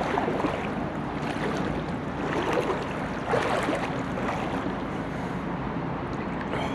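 Water swishing around a person's legs as they wade through a shallow river: a steady rush of noise with a couple of louder swishes.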